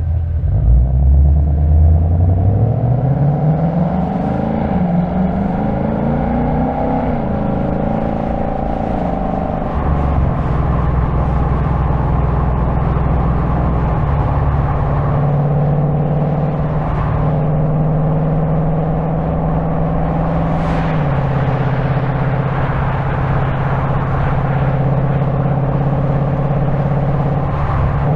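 2025 Ford Mustang GT's 5.0-litre V8 accelerating, its note rising steadily for about six seconds before easing off. It then settles into cruising at steady revs, with a couple of small steps in pitch.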